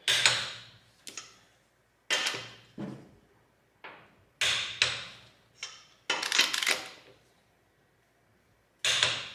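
Craftsman half-inch drive click torque wrench tightening a wheel lug nut and clicking each time it reaches its set torque: about five sharp metallic clicks, roughly two seconds apart, each ringing out briefly, with fainter clicks between.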